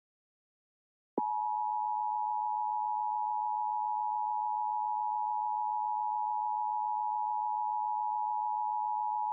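Emergency Alert System two-tone attention signal: two close steady pure tones just under 1 kHz sounding together, the EAS dual tone of 853 and 960 Hz, starting about a second in after a short silence and holding unchanged.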